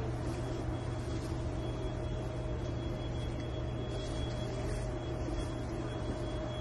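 A steady, unchanging low mechanical hum, with a faint steady whine held above it.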